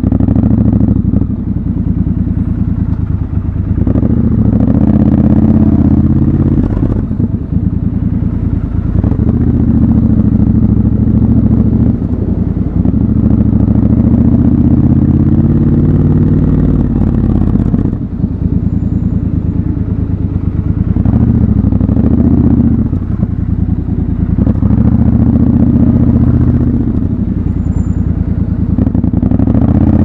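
Triumph Scrambler 1200 XC's parallel-twin engine running at low revs, its pitch rising and falling several times as the rider rolls on and off the throttle, with a long steady climb in pitch from about eight seconds in that drops away near eighteen seconds.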